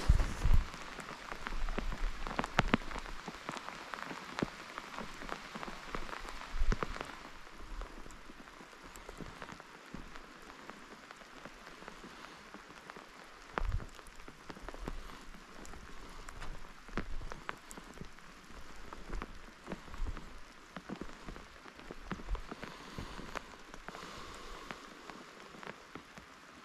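Rain falling steadily, with many sharp drop ticks and a few louder bumps, the strongest just after the start and another about halfway through.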